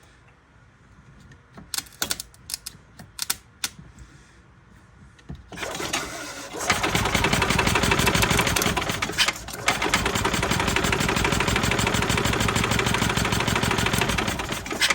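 A few scattered clicks, then about five seconds in the Yamaha G9 golf cart's engine is cranked over on jump-pack power, running as a loud, fast, steady chatter with a brief dip partway through. It is primed with ether but does not keep running: the spark cuts out because the 12 volt clip bypassing the throttle pedal has come loose.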